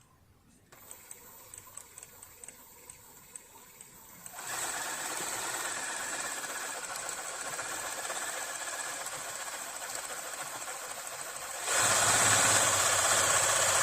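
Riccar Bernina Holidayne 1090 sewing machine being run after oiling to free its seized mechanism. It starts with slow, soft ticking strokes, about four a second, then runs steadily from about four seconds in, and speeds up and gets louder near the end.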